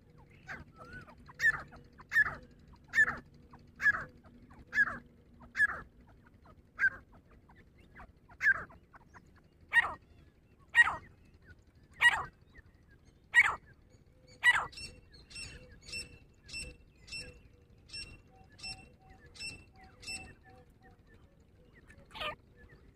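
Grey francolin calling: a run of about fourteen loud, sharp calls roughly one a second. Then about a dozen quieter, evenly spaced high piping notes, and one more loud call near the end.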